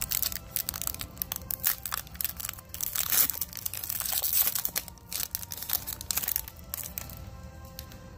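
A foil Pokémon booster-pack wrapper crinkling and crackling as it is torn open and crumpled in the hands, busiest in the middle and easing off near the end.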